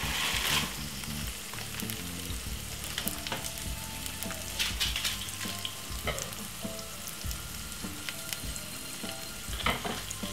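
Sliced frankfurters frying in shallow oil in a frying pan, sizzling steadily with small crackles. A brief louder hiss in the first half-second as a block of instant noodles goes into a pot of boiling water.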